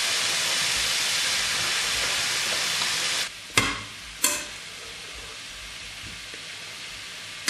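Pork loin steak and vegetables sizzling in a hot frying pan, a steady hiss that turns much quieter about three seconds in. Just after the drop come two sharp clicks, the metal tongs against the pan.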